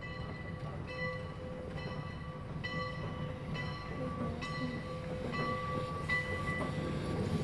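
Steam locomotive's bell ringing in a steady rhythm, a clear ringing tone struck a little faster than once a second as the engine approaches, over a continuous low rumble.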